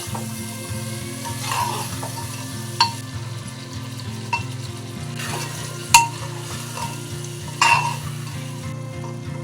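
Mutton masala sizzling in a pot as a metal spatula stirs it, scraping and clinking against the pot about five times, loudest about six seconds in.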